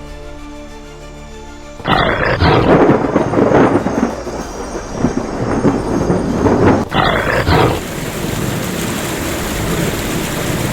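Soundtrack music, then a sudden loud crash about two seconds in with long rumbling after it. A second crash comes about seven seconds in, and a steady rushing hiss like heavy rain or wind fills the rest.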